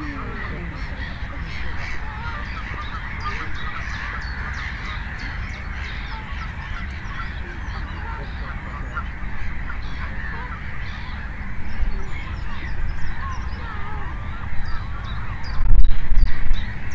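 Many short bird calls overlapping, likely waterfowl, over a steady low background hum; a louder low rumble comes in during the last few seconds.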